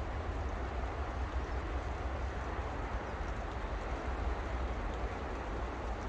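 Steady outdoor background noise: an even hiss over a constant low rumble, with no distinct bird calls.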